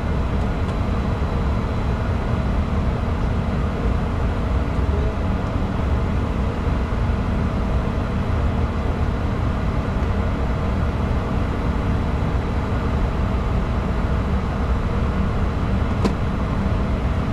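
Steady in-flight cockpit noise of a Bombardier Challenger 605 business jet climbing after take-off: a dense, even rumble of airflow and engines. One light click near the end.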